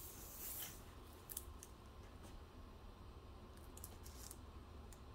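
Faint handling sounds: a few light clicks and soft rustles as a diamond-painting canvas and its clear plastic cover are handled on a table.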